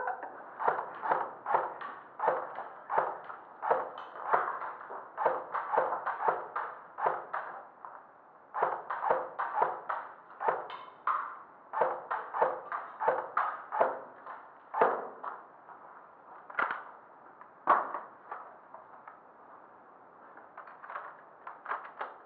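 Airsoft guns firing in quick, irregular single shots, often several a second, heard as sharp clacks and pings inside a bare concrete hall. The shots come thickly at first and thin out after the middle.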